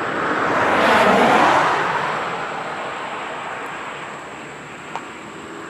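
A car passing by: its tyre and engine noise swells to a peak about a second in, then slowly fades away. A single short click comes near the end.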